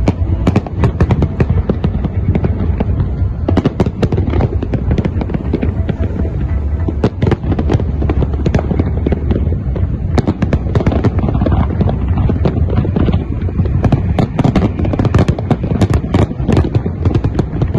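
A New Year fireworks display: rapid, dense bangs and crackling over a continuous low rumble of explosions, with no let-up.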